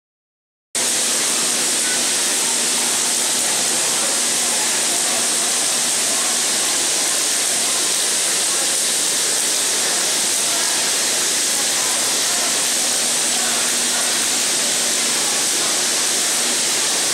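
Steady, even hiss of hundreds of die-cast toy cars rolling down plastic tracks and riding the conveyor lifts of the Metropolis II kinetic sculpture. It starts just under a second in.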